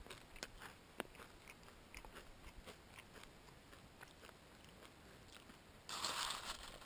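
Dry Raisin Bran flakes being chewed, with faint scattered crunches. About six seconds in comes a louder rustle of about a second, as the spoon digs into the dry flakes in the bowl.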